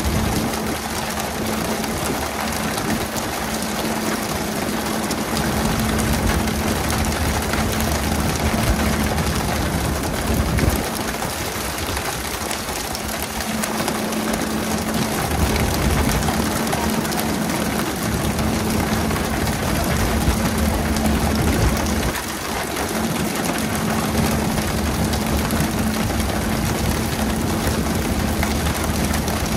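A fishing boat's engine running with a steady hum, under a constant rain-like hiss of water spraying and splashing along the hull.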